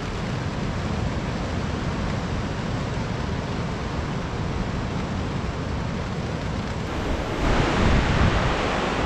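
Heavy rain pouring steadily, with wind. About seven seconds in it turns louder, with wind rumbling on the microphone.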